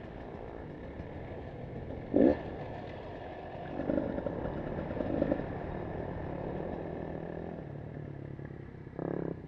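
Dirt bike engine running while riding a dirt trail, heard from a helmet-mounted camera. There are several short louder bursts: a sharp one about two seconds in, two around the middle, and one near the end.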